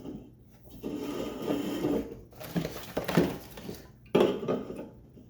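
Aluminium seltzer cans being pulled from a cardboard box and set down: a stretch of rattling, then several knocks, the loudest about four seconds in.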